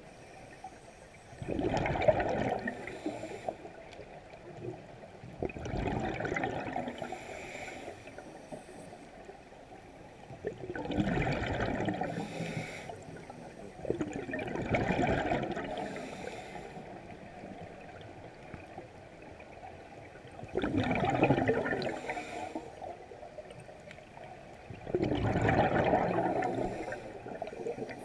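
Scuba diver breathing through a regulator underwater: six surges of exhaled bubbles gurgling past, one every four to five seconds, with quieter water between.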